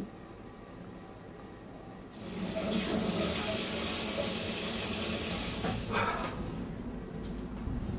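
A short click, then a wall-mounted kitchen tap running into a metal sink: a steady water hiss that starts about two seconds in and stops suddenly about four seconds later.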